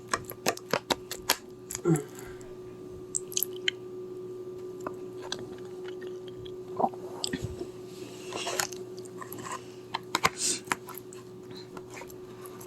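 Poutine being chewed close to the microphone, with many short sharp mouth clicks and bites over a faint steady hum.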